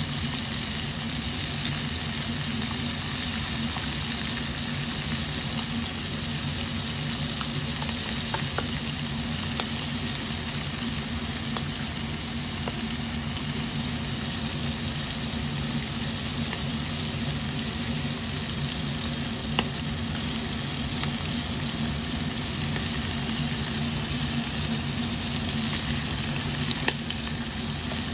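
Battered prawns deep-frying in a pot of hot oil: a steady sizzle with a few sharp pops, over a low steady hum.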